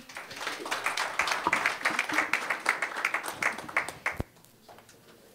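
Audience applauding for about four seconds, then dying away to a few scattered claps.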